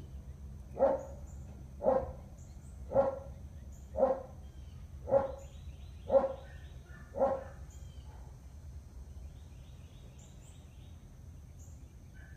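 A dog barking seven times, about once a second, then falling quiet.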